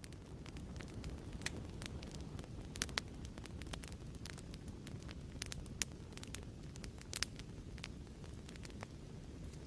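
Wood fire crackling in a fireplace: irregular sharp pops and snaps over a steady low rumble of flames.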